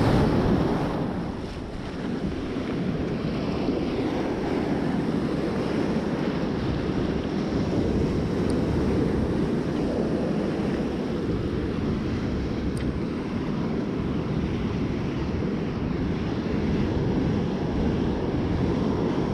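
Rough storm-swell surf breaking and washing up the beach, with wind rumbling on the microphone. Loudest at the very start, dipping briefly about two seconds in, then steady.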